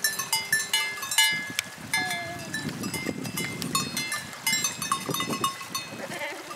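Small bells on grazing goats' collars clinking over and over at an uneven pace, over low rustling and tearing of grass close by, with a short faint goat bleat about two seconds in.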